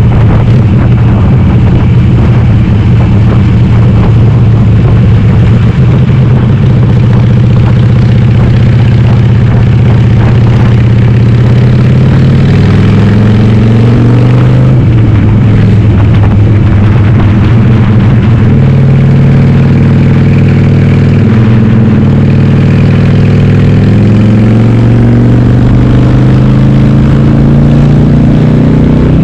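Harley-Davidson Sportster V-twin, a 2008 883R upgraded to 1200, running loud through a Cobra Speedster 909 exhaust with the dB killers removed, under way. The engine holds a steady pitch for about twelve seconds, then the revs rise and fall in steps several times.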